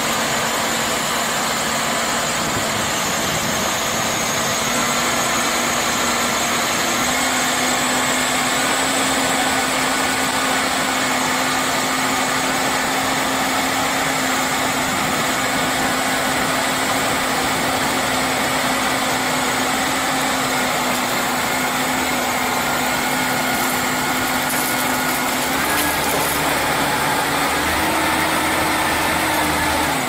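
Engine of heavy tree-service machinery running steadily, its pitch shifting slightly up and down a few times.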